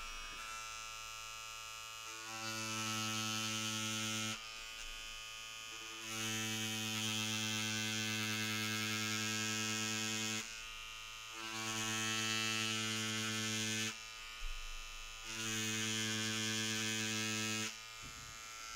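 Pen-style cartridge tattoo machine with a thin liner cartridge, running at about 8.5 volts: a steady electric buzz. Four times it grows louder for two to four seconds as the needle is run into the leather to cut lines.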